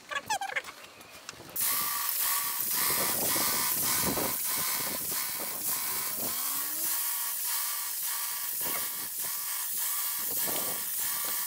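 Wagner Control Pro 250M airless paint sprayer in use: the pump runs with a rhythmic mechanical clatter under the steady hiss of paint atomising from the spray tip on the extension wand. It starts about a second and a half in.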